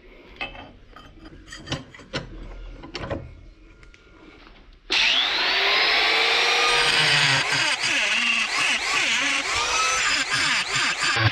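A few light knocks and clicks of handling, then about halfway through a power tool starts abruptly and works the material loudly, its pitch rising and falling as the load changes.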